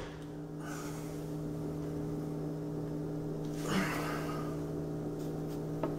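A steady low electrical hum, with a brief soft rustle about four seconds in and a faint click near the end.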